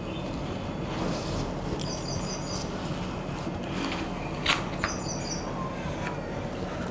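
Metal ice cream scoop working through firm frozen ice cream in a plastic tub, with two sharp clicks close together about four and a half seconds in. A bird repeats a short, high chirping call about every three seconds, and a low steady hum runs underneath.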